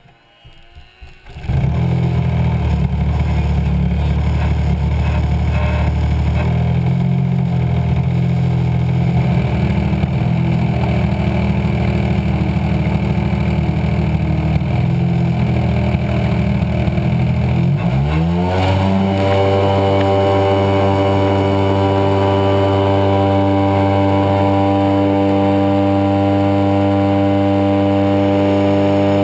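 DA 100 twin-cylinder two-stroke petrol engine of a large RC float plane, heard close up, comes in loud about a second and a half in and runs unevenly at low throttle while taxiing. About eighteen seconds in it is throttled up with a steep rise in pitch to a steady full-power run for the takeoff and climb.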